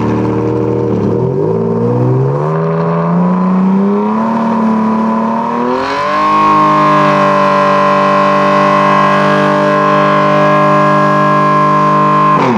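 Ferrari Enzo's V12 engine revved slowly and evenly up, then held at a steady high rpm for about six seconds before dropping off at the very end: the engine being held at a fixed rpm for a trackside noise test.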